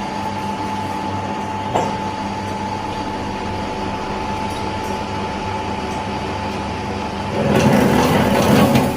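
Electric wire stripping machine running with a steady motor hum. There is a short knock about two seconds in. Near the end comes a louder, rough grinding for about a second and a half as a wire passes through its cutter.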